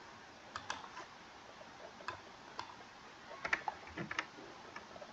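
Faint, irregular clicks of a computer keyboard and mouse during on-screen text editing, about ten in all, with a quick cluster of several about three and a half seconds in.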